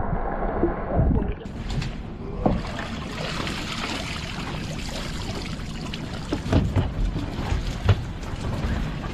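Muffled at first, then about a second and a half in the sound opens up into water pouring and dripping off a crab pot as it is hauled out of the sea, with scattered knocks of the pot's frame.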